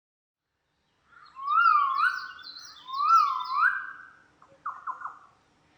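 A bird calling: two clear swooping whistled phrases, each rising and falling, then a few short falling notes.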